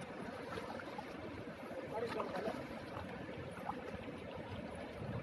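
Steady rush of river water flowing over a rocky bed, with faint voices murmuring about two seconds in.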